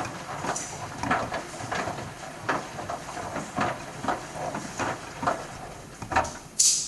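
Bosch washing machine drum turning on a wash, with water and laundry sloshing and a pipe tumbling inside the drum, making a swish roughly every half second to second. A short sharp hiss near the end.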